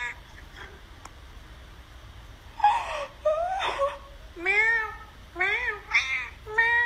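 Domestic cat meowing repeatedly, about five meows from roughly two and a half seconds in, each rising and falling in pitch.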